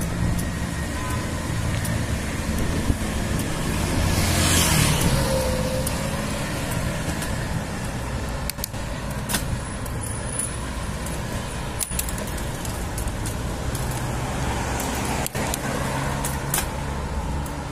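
Road traffic: car and other motor-vehicle engines running, with one vehicle passing close and loudest about four to five seconds in.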